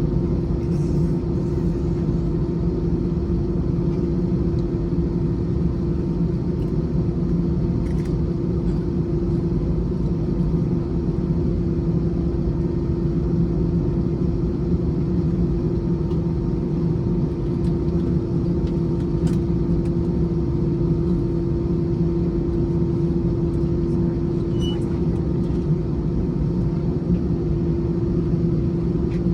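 Airbus A321's jet engines at idle heard inside the passenger cabin while taxiing: a steady rumble with a constant hum, unchanging throughout.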